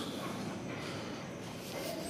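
Steady low room tone, a faint even hiss with no distinct event.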